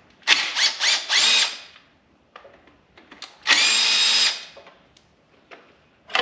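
Cordless drill run in four quick trigger pulls, its motor whining up in pitch each time, then one steady run of just under a second, working fasteners at the front of a van engine during a timing-belt job.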